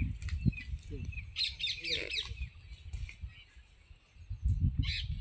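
Birds chirping: a quick run of high chirps about a second and a half in and another short burst near the end, over an uneven low rumble.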